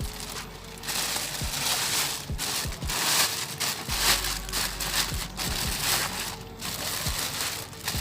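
Plastic bag crinkling and rustling as it is handled and opened by hand, in irregular bursts with a few soft knocks.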